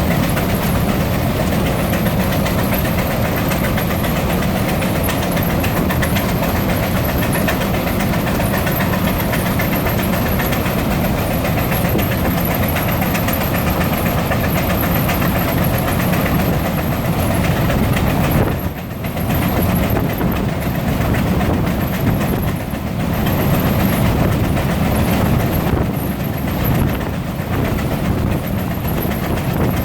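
Three Frick steam traction engines (9½×10, 8½×10 and 9×10) working under belt load, driving two belt-driven fans and a power eater (a dynamometer). Their exhausts and the belted machinery run together in a loud, steady, dense din that dips briefly about two-thirds of the way through.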